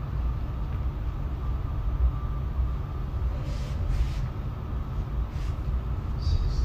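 Steady low rumble of the arena's background noise, with a faint hum and a few soft rustles a little past halfway through.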